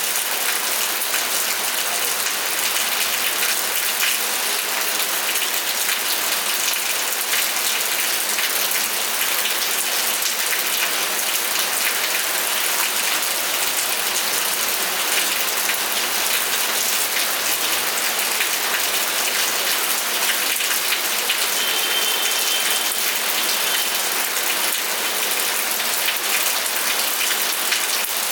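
Steady rain falling on a surface, a dense even hiss of drops with fine patter.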